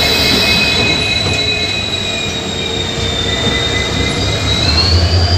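An Indian Railways diesel locomotive and its passenger coaches roll past as the train pulls into the platform, its wheels squealing high and steady under braking. The squeal rises in pitch near the end, over a low rumble that swells.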